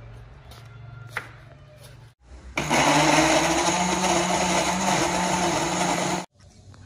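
Electric countertop blender running on cut tomatoes, puréeing them into a smoothie. It starts abruptly about two and a half seconds in, runs steadily for nearly four seconds, and cuts off suddenly.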